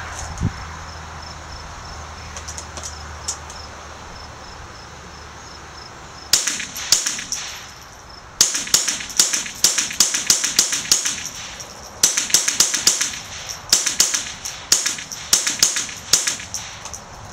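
An AR-style .22 Long Rifle fired semi-automatically in quick succession, about two or three sharp, light cracks a second, in strings with brief pauses. The shooting starts about six seconds in, after a few faint clicks.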